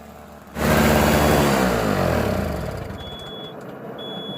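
Toro CCR1000's 3 hp two-stroke engine running, suddenly loud about half a second in as the snowblower digs into packed snow, its pitch dropping under the load and then steadying. Two short high beeps about a second apart come near the end.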